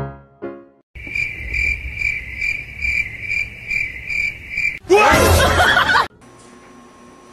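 Piano music ends, then a steady run of cricket-like chirps at one high pitch, about two a second. About five seconds in, a loud, harsh screech lasting about a second cuts off suddenly. It gives way to a quiet, steady hum.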